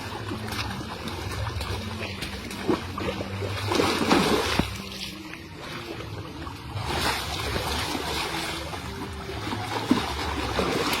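Water splashing and dripping, loudest about four seconds in and again about seven seconds in, over a steady low hum, with a sharp knock near the end.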